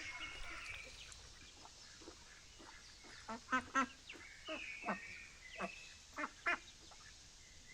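Domestic ducks quacking: a run of short quacks that starts about three seconds in and keeps coming every half second or so.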